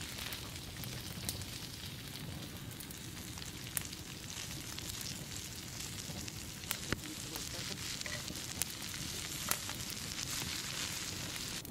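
Food sizzling as it grills over a fire: a steady hiss broken by a few sharp, scattered pops.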